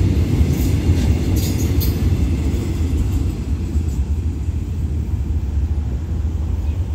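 Loaded container flat wagons of a freight train rolling past on the track: a steady low rumble of wheels on rail, with a few brief high squeaks about a second in. The rumble eases a little toward the end as the last wagons go by.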